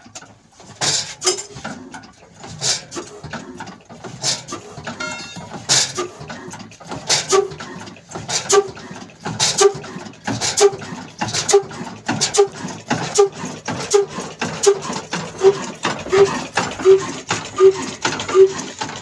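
Old desi stationary diesel engine with a large flywheel starting up. A few sharp metal knocks come first, then the slow, even beats of the engine firing, which come closer together as it gathers speed, to about one and a half a second.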